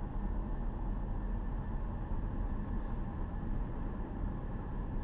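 Steady cabin noise inside a moving 2012 Ford Fusion Sport: road and tyre noise with the low hum of its 3.5-litre V6 through the stock exhaust, which has had its resonator cut out.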